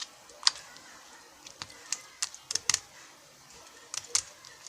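Slime being mixed and squeezed by hand, giving irregular sticky clicks and pops, a few at a time with short gaps.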